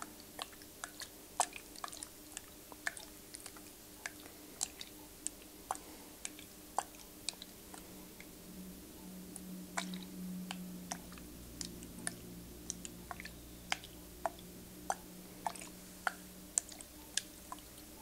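Irregular sharp close-up clicks and taps, a few a second, with no whispering. A low steady hum comes in about halfway and stops shortly before the end.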